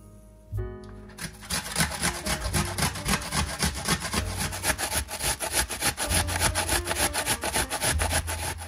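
A whole onion being grated on a metal box grater: rapid rasping strokes, about four a second, starting about a second in.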